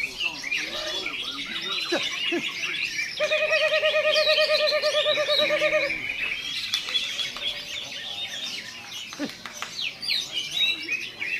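Greater green leafbird (cucak hijau) singing: a busy run of quick chirps and whistles. About three seconds in, a steady wavering tone with overtones holds for nearly three seconds and is the loudest part.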